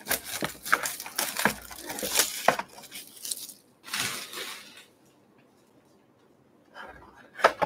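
Plastic shrink wrap crinkling and tearing as it is stripped off a sealed box of trading cards, a busy run of crackles and snaps for the first two and a half seconds. A short rustle follows about four seconds in, then the table goes quiet.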